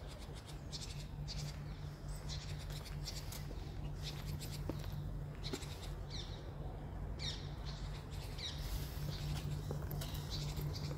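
Wild birds singing and chirping: many short, high calls and quick sweeping notes, one after another, over a steady low hum.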